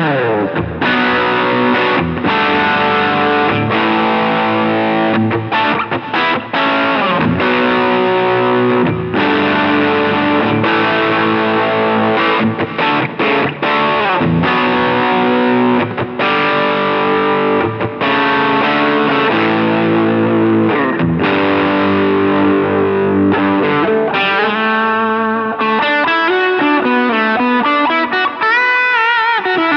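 Sterling Majesty X electric guitar on its bridge pickup through high-gain distortion, playing a riff broken by short stops. Near the end it moves into a lead line with notes that bend and waver in pitch.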